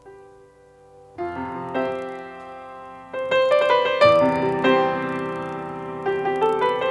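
Background piano music: quiet for the first second, then piano notes and chords come in and carry on.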